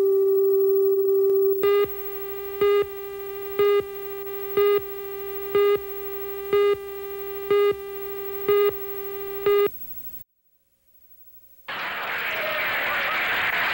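Video tape leader: a steady test tone over the colour bars, then countdown beeps about once a second, nine in all, over a quieter continuous tone, cutting off about ten seconds in. After a short silence a steady rush of noise comes in.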